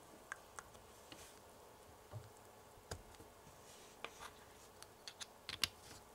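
Faint, scattered clicks and taps of a small plastic squeeze bottle being handled and capped, with a quick cluster of clicks near the end.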